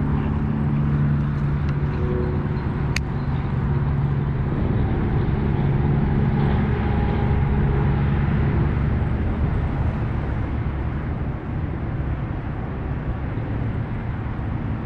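Steady low outdoor rumble like road traffic, with a low hum fading away over the first half and a single sharp click about three seconds in.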